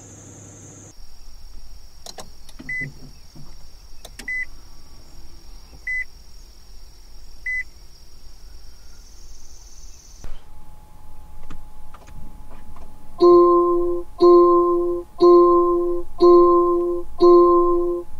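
Car dashboard chimes at power-on. In a Nissan, soft short beeps come about every second and a half over a faint high whine. In a Range Rover, five loud chimes ring about a second apart.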